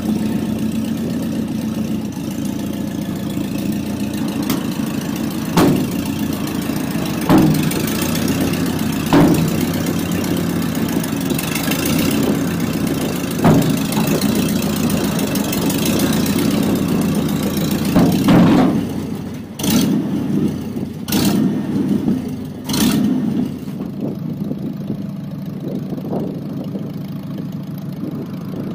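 An engine running steadily at low revs, with a handful of sharp knocks over it, several close together near the middle.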